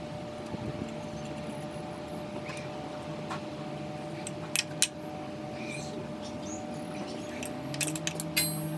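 Metal clinks and clicks of hand tools and bolts while unbolting the exhaust side of an SR20DET engine: two sharp clicks near the middle and a quick run of clinks near the end, the last one ringing briefly. A steady low hum runs underneath.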